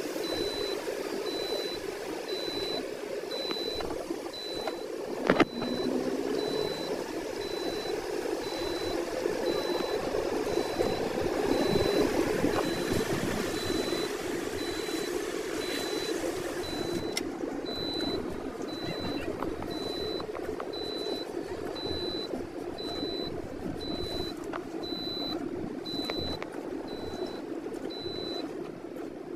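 Car driving on a wet road, heard from inside the cabin: steady engine and tyre noise, with a high beep repeating about one and a half times a second and a single sharp knock about five seconds in.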